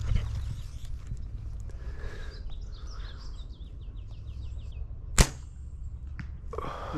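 A compound bow is shot: one sharp crack of the released string, about five seconds in, with a brief ringing after it.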